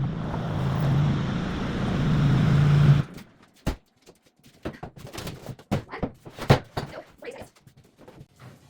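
A motor running steadily with a low hum, cutting off abruptly about three seconds in, then scattered knocks and thuds.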